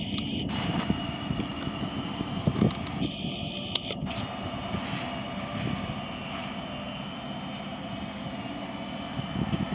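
Freight cars of a manifest train rolling slowly through a curve of yard track, their wheels squealing in a steady high tone over a low rumble.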